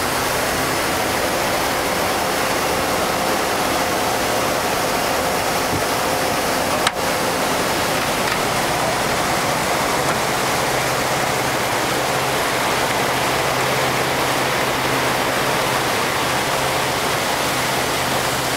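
1976 Silverline motorboat underway: a steady rush of water and wind with the engine humming faintly beneath. A single sharp click about seven seconds in.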